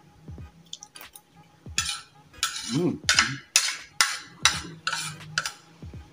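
Metal fork and spoon scraping and clinking against a plate while fish is picked apart: a quick run of about eight short scrapes, roughly two a second.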